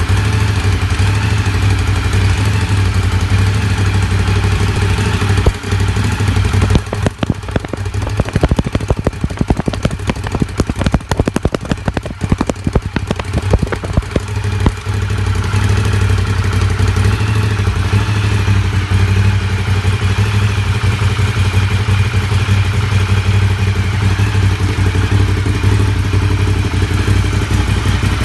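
Ducati Diavel Carbon's V-twin running on its stock exhaust while warming up, a steady low note. From about six to fifteen seconds in it turns uneven, with a run of rapid pops and dropouts, then settles back to steady running.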